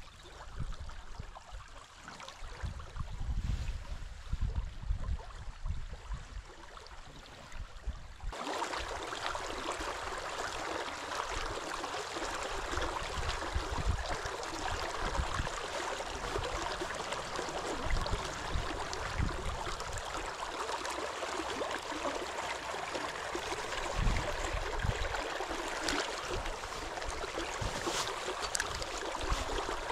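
Fast-flowing river water rushing, with irregular low rumbles. About eight seconds in, the rushing turns abruptly louder and fuller, then runs on steadily.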